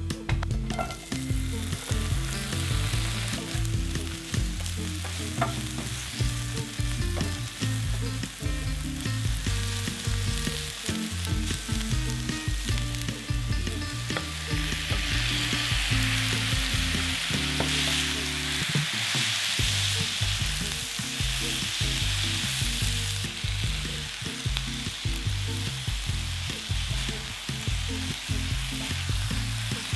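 Spicy marinated duck, onion and green onion sizzling in a hot cast-iron skillet while wooden spatulas stir the food. The sizzle grows louder about halfway through, when the sauced duck goes into the pan.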